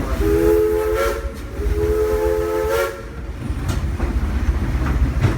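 Steam locomotive whistle blowing two long blasts, each a chord of several steady notes, over the low rumble of the train running.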